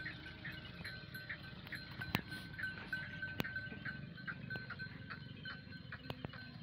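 A flock of goats and sheep grazing. A short high note repeats evenly about two and a half times a second and fades out near the end, with a few sharp clicks over a low rustle.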